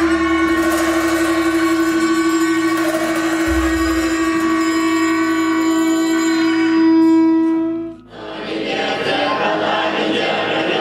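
Tibetan ritual wind instruments: a conch shell trumpet holds one long steady note, with gyaling oboes sounding above it. The note swells near the end and cuts off sharply about eight seconds in, after which a denser group chant follows in the echoing hall.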